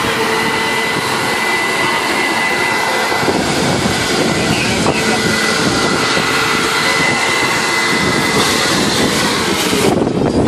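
Corded electric blower running steadily, a rushing air noise with a faint whine, inflating a water walking ball through its opening. The rush drops off sharply near the end as the blower is taken away.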